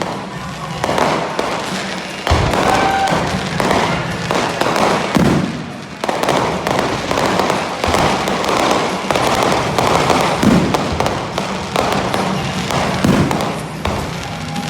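Fireworks display going off: many overlapping bursts and crackles in quick succession, with a heavy boom a couple of seconds in.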